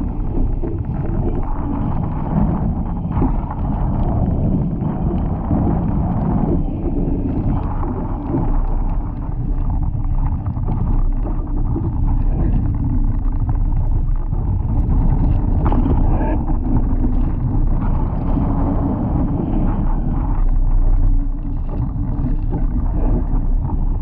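Heavy wind noise on the microphone over water rushing and splashing along the hull of a Laser dinghy sailing fast in gusty wind of about 18 to 20 knots. The noise is steady, with no single event standing out.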